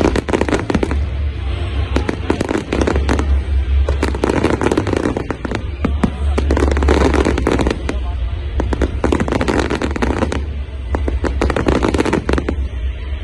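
Fireworks display: dense salvos of crackling bursts and bangs from aerial shells, coming in waves about every two seconds over a steady low rumble.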